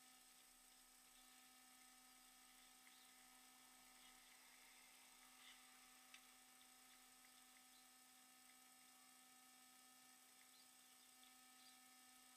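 Near silence: a faint steady electrical hum with thin high whines over a light hiss, and a couple of faint ticks about six seconds in.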